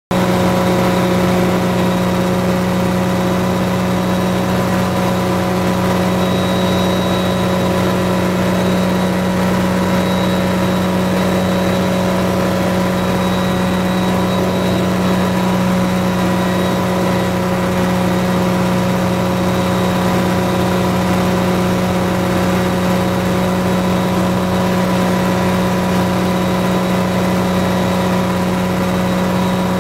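Helicopter heard from inside the cabin in steady cruise flight: a constant engine and rotor drone with a strong low hum and a few fixed higher whining tones, never changing pitch.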